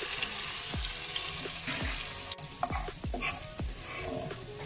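Hot oil sizzling in a pan as a tadka is cooked, with a spoon stirring through it and a sharp clink against the pan about three seconds in.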